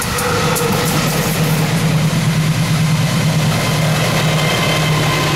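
Diesel-electric locomotive of a passenger train running past close by: a loud, steady low engine drone, with a few higher steady tones joining about halfway through.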